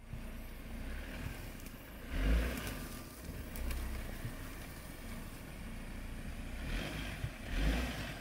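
A Jeep Wrangler driving, its engine and tyres giving a steady low rumble. The sound swells louder briefly about two seconds in and again near the end.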